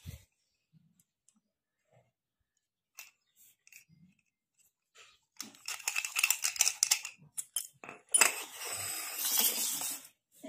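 A small metal padlock and its key handled by hand: a few faint clicks, then a few seconds of rapid clicking and rattling from about halfway in, followed by a louder scraping noise lasting about two seconds near the end.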